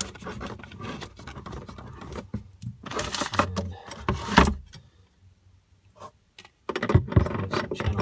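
Irregular rustling and scraping handling noise as a braided faucet connector is worked by hand onto a sink's water supply fitting, close to the microphone. It is loudest for a second or so about three seconds in, goes almost quiet, then picks up again near the end.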